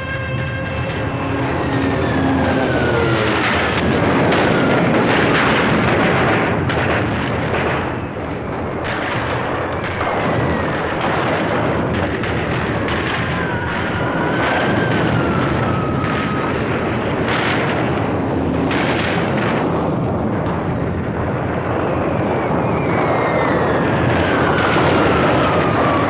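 Air raid: a dense, continuous rumble of aircraft with repeated bomb blasts, and several descending whistles sliding down in pitch over a second or two.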